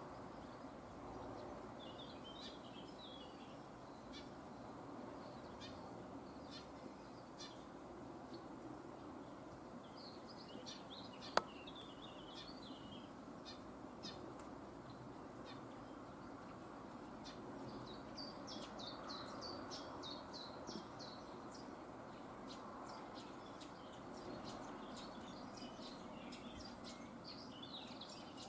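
Small birds chirping in scattered short bursts, more often in the second half, over a steady low background hum, with one sharp click about eleven seconds in.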